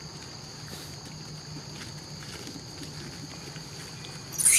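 Steady high-pitched drone of a forest insect chorus (cicadas or crickets). Near the end, a short, loud, harsh high-pitched burst cuts in.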